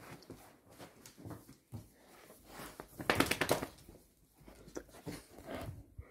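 Dogs stirring and moving about close by on a tiled floor: scattered scuffles and clicks, with a short burst of rapid rattling about three seconds in.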